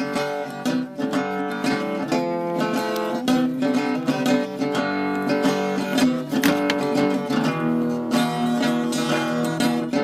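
Background music of an acoustic guitar played with quick plucked and strummed notes.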